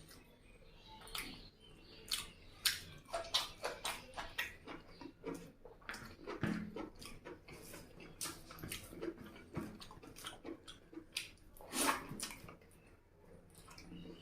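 Close-miked eating sounds: wet chewing and lip-smacking of chicken curry and rice, an irregular run of short clicks and smacks with a few louder ones.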